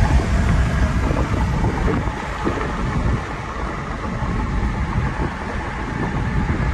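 Steady low rumble of tyre and wind noise inside the cabin of a 2019 Cadillac CTS AWD holding a steady 50 mph.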